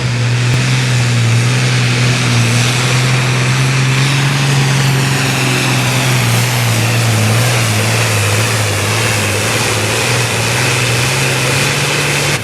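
Turbocharged diesel Super Farm class pulling tractor running at full power as it pulls the weight-transfer sled down the track: a loud, steady engine drone that wavers slightly in pitch, with a high whine above it.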